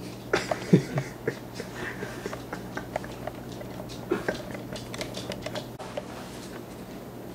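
Plastic toy dinosaur figures being handled, tapping and knocking together and rubbing over a blanket: a scatter of light taps and rustles that thins out after about six seconds.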